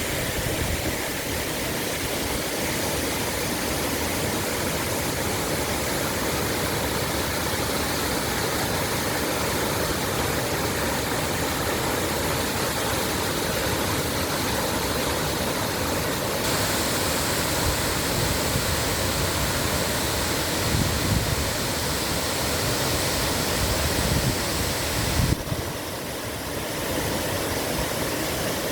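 Waterfall: a steady rush of falling water, with a few low thumps about twenty to twenty-five seconds in.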